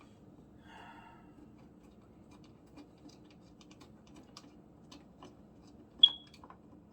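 A screwdriver working the screws out of a wall switch, giving scattered small clicks and scrapes, with one sharp click and a brief ring about six seconds in.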